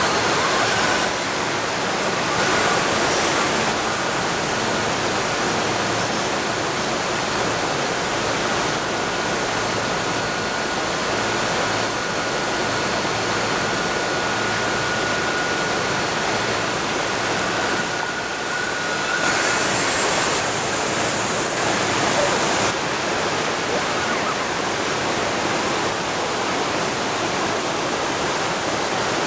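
Steady rushing of river water flowing over granite slabs.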